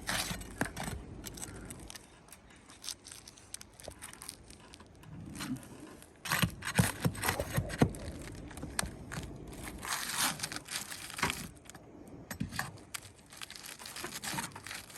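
A damaged roof shingle being pried and worked loose: irregular scraping, crackling and tearing with scattered sharp knocks, as the sealed shingle rips away and tears chunks of material off the shingle below.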